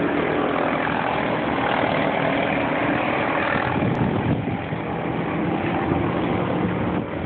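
Go-kart engines running on the track, a steady loud drone that carries on throughout.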